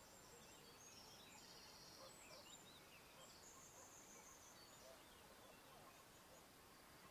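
Near silence: faint room hiss with a few faint high chirps.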